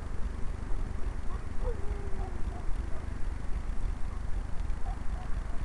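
Wind buffeting the microphone of a small camera slung under a balloon: a steady low rumble with fast, irregular gusty thumps. A few faint short chirps are heard in the middle.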